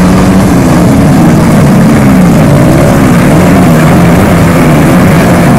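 A pack of motocross dirt bikes racing off the start, many engines revving hard together, their pitches rising and falling over one another.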